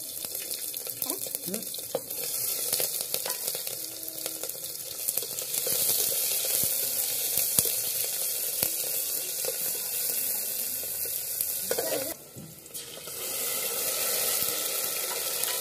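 Sliced onions and whole spices sizzling in hot oil in an aluminium pressure cooker, with a ladle stirring and clicking against the metal pot. The sizzle briefly drops away about twelve seconds in, then comes back.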